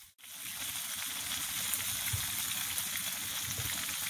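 Pieces of fish frying in hot oil in a skillet, sizzling steadily, with a fork moving them around in the pan and a few soft knocks.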